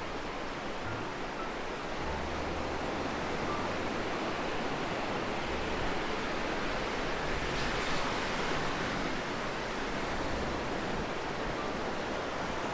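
Sea waves breaking and washing up the shore in a steady rush, with low rumbles of wind on the microphone.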